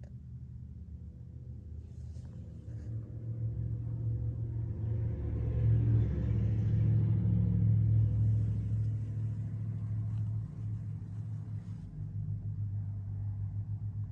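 Low engine rumble of a vehicle that swells over several seconds, peaks around the middle and then fades.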